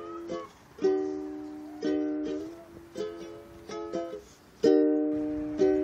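Background music of strummed ukulele chords, each chord struck sharply and ringing out as it fades, about once a second.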